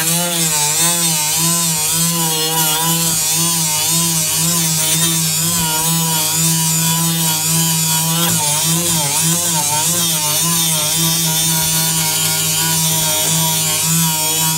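Dremel rotary tool running at high speed with a small abrasive wheel, sanding and roughing up a thin fibreglass panel. It is loud and steady: a motor whine that wavers in pitch as the wheel is pressed into the surface, over a continuous gritty hiss.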